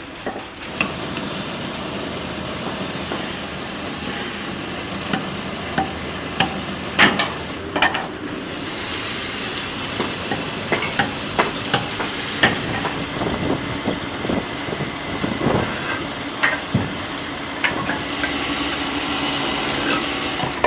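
Workshop noise: a steady machine hum with irregular knocks and taps from wood being worked.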